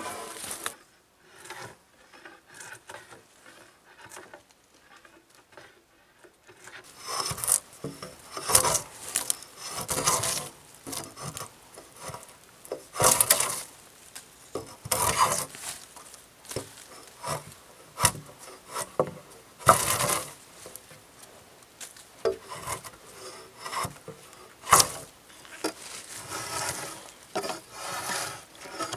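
Drawknife stroked along a log, its blade scraping and peeling off bark and wood shavings in a series of irregular strokes of about a second each, starting about seven seconds in.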